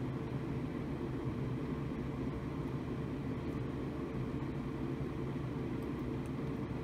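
Homemade laminar flow hood's blower fan running steadily: an even rush of air over a low, constant hum.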